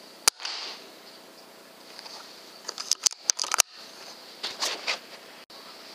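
A single sharp air rifle shot at a rat. It is followed by two short runs of clicks and knocks, about two seconds and four seconds later.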